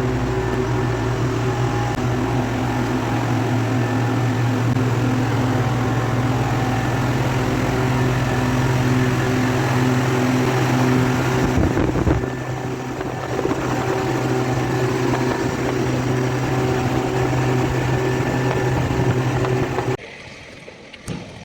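Bitzer refrigeration compressor of a cold-storage plant running, a loud, steady mechanical hum with a low drone and higher steady tones. The sound cuts off sharply near the end.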